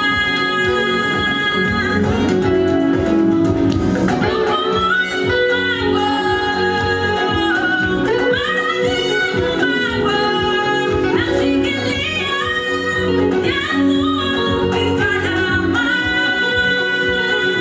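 Choir singing a gospel song in held, stepping notes over instrumental accompaniment with a steady beat.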